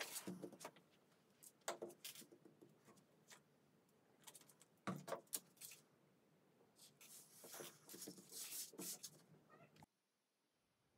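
Near silence with a few faint clicks and rustles of someone shifting and handling things at a table; the sound cuts out completely about a second before the end.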